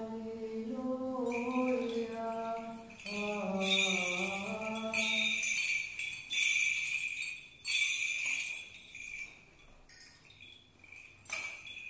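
Small bells on an Orthodox priest's brass censer jingling as it is swung, in repeated bursts about a second apart that thin out near the end. For the first five seconds or so a chanting voice carries on over the jingling, then stops.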